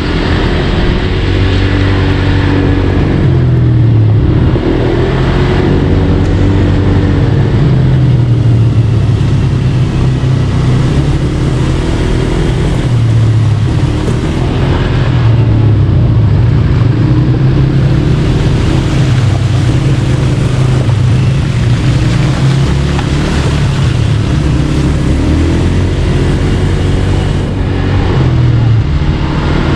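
Four-wheel ATV buggy engine running during a ride, its pitch rising and falling again and again as the throttle is opened and eased.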